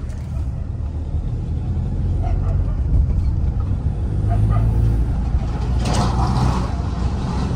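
Tata Safari's 2.0-litre four-cylinder turbo-diesel accelerating gently in third gear, its low engine note growing louder, with a brief rushing hiss about six seconds in.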